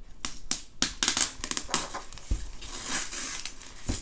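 Adhesive tape being peeled off the white wrapping of a rolled diamond-painting canvas, the wrapping crinkling as it is handled. A few sharp crackles come first, then a denser stretch of crinkling and rustling.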